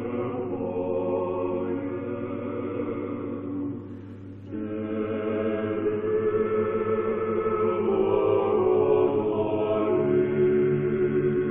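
Male vocal quartet (two tenors, baritone, bass) singing unaccompanied old Russian sacred music in sustained chords, with a brief pause for breath about four seconds in before a fuller, louder passage.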